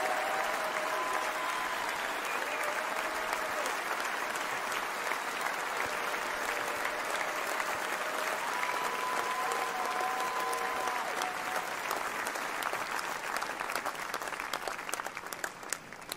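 Large convention crowd applauding steadily, with a few long held notes over it; the applause thins to scattered claps and dies away near the end.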